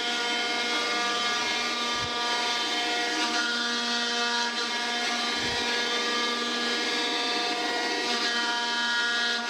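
Rockford open-sided hydraulic planer running, a steady whine made of many even tones, as its single-point tool cuts across a cast-iron straight-edge casting. Two low thumps come about two and five and a half seconds in.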